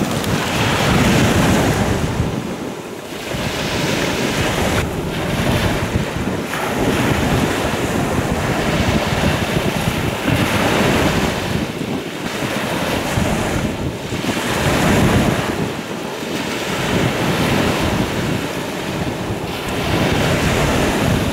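Sea surf breaking and washing on the shore, with wind buffeting the microphone; the noise swells and ebbs every few seconds.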